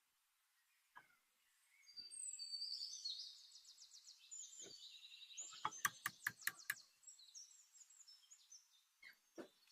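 Birds chirping and trilling in quick high notes, with a rapid run of about six sharp knocks about six seconds in and a few single knocks elsewhere.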